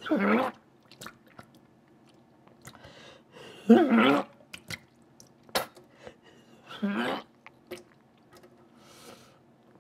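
A man's short pained vocal sounds, three of them about three seconds apart, with wet mouth clicks and smacks in between: a reaction to the burn of Carolina Reaper hot wings.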